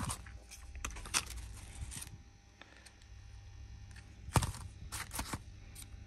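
Handling noises of small hard objects: a few scattered sharp clicks and light scrapes, the loudest click about four and a half seconds in, over a faint steady hum.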